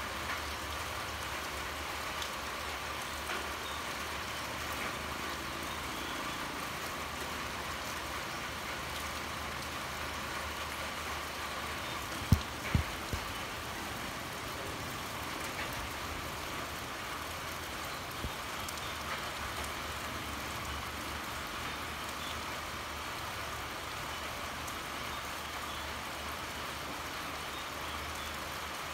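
Steady rain pouring. About halfway through, three sharp knocks in quick succession stand out above it.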